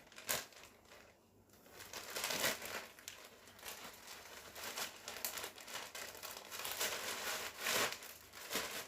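Bags crinkling and rustling in irregular spurts as embroidery floss and fabric are stuffed back into them, with a short pause about a second in.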